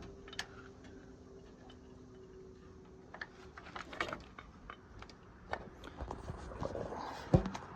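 Scattered faint clicks and taps, with a faint steady hum in the first few seconds and a sharper knock near the end.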